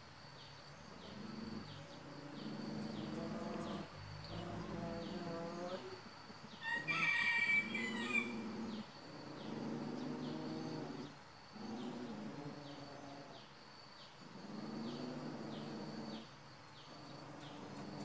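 Rooster crowing among other drawn-out animal calls, the loudest and highest crow about seven seconds in. Behind them an insect chirps in short high pulses, about one and a half a second.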